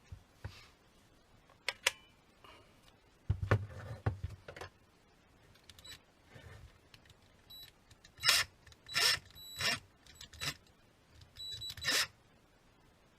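Impact driver parts being handled during repair: scattered clicks and knocks, a heavier thud about three seconds in, then several short scrapes with a faint squeak between about eight and twelve seconds in.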